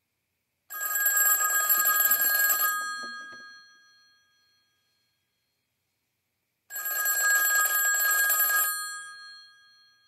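Bell ringer of a classic rotary desk telephone ringing in two bursts of about two seconds each, some six seconds apart, with the gongs ringing on and fading after each burst. The phone is ringing on a modern voice-over-IP line, and it works even though the owner thinks he may have loosened its bias spring.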